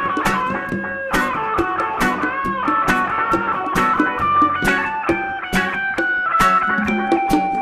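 A rock/reggae band playing live, led by an electric guitar playing a line of sustained notes with bends over a steady beat.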